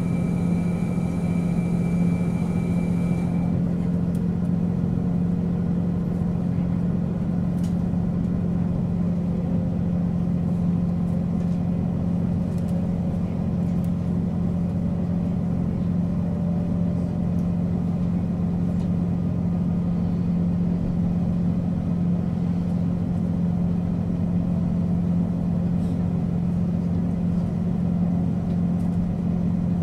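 JR Hokkaido KiHa 40 series diesel railcar idling: a steady low engine drone. A high whine over it cuts off about three and a half seconds in.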